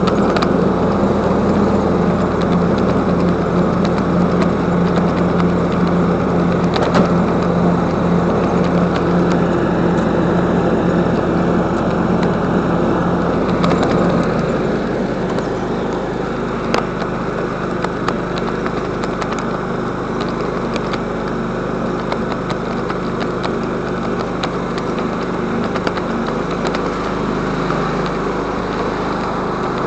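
An engine running steadily; about 14 seconds in its note drops and settles into a lower, even pitch.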